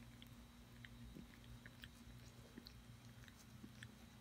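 A domestic cat grooming, licking its paw and face: faint, irregular wet tongue clicks over a low steady hum.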